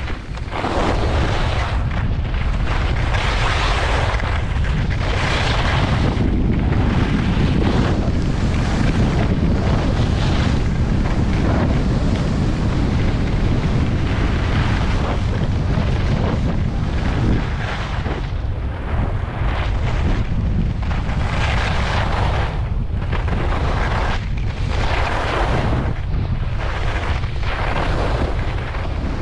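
Heavy wind buffeting on the camera's microphone from skiing downhill at speed, up to about 60 km/h, a continuous low rumble. Over it, the hiss and scrape of skis on snow swells and fades every second or two as the skier turns.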